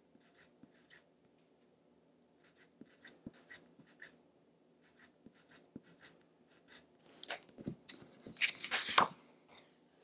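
Faint short scratches and taps of a colored pencil on paper, drawing small circles. Near the end comes a louder rustle of the paper sheet being handled and lifted.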